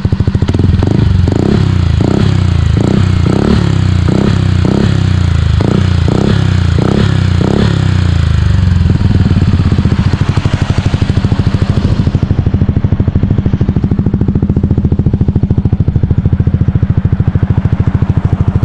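Yamaha Aerox 155 scooter's single-cylinder engine idling through an aftermarket TRC Power Pipe exhaust, whose large outlet makes it somewhat loud. For the first eight seconds or so a run of short, regular pulses, about two a second, rides over the idle; after that it settles to a steady idle.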